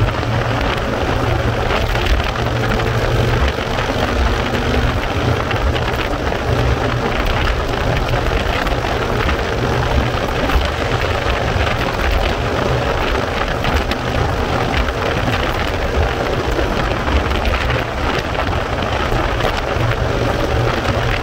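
Heavy wind rush buffeting the microphone on a motorcycle at highway speed, with the engine running steadily underneath.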